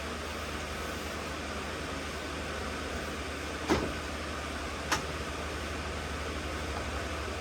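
Steady low machine hum, with two sharp knocks a little over a second apart near the middle, the first the louder.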